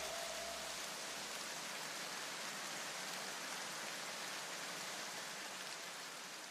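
Steady, even hiss that fades slowly near the end.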